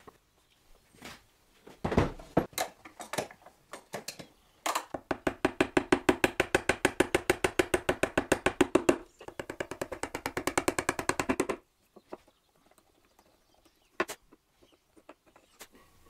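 Wooden mallet striking a chisel, chopping a mortise in ash: a few irregular knocks, then a fast, even run of blows for several seconds with a short break, then a few scattered taps near the end.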